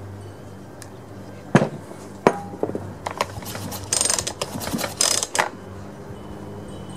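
Hands and a small metal tool working at a chainsaw's cylinder head on a tabletop: two sharp knocks, then two short bouts of metallic rattling and clinking about four and five seconds in.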